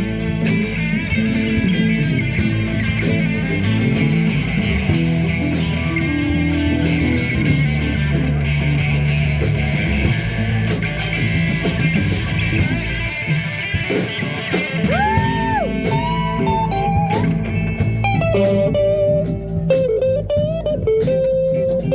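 Live blues band playing, led by electric guitar. Past the middle, the lead guitar holds long notes, bending them up and down.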